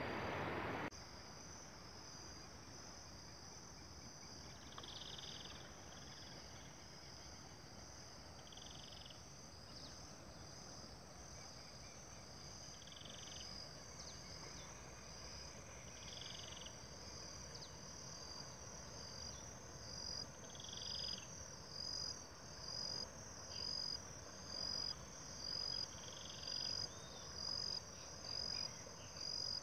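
A faint chorus of calling insects and frogs in wet riverside vegetation: a steady high chirring, with a shorter, lower call repeated every three to four seconds. From about two-thirds of the way through, the chirring pulses about once a second and grows louder. A second of louder noise at the start cuts off abruptly.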